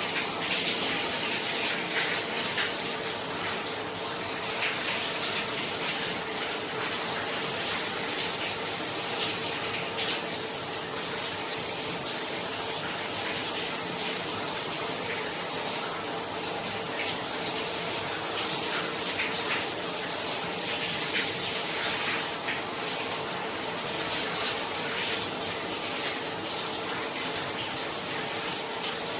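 Shower running steadily in a small tiled bathroom: a continuous hiss of spray with small splashes, over a faint steady hum.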